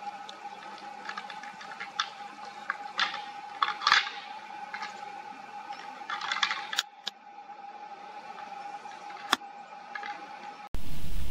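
Fallow deer bucks clashing and grinding their antlers together: irregular sharp clacks and rattles, with thicker flurries about four and about six and a half seconds in, over a steady thin whine. Near the end it cuts suddenly to a loud, even rushing noise.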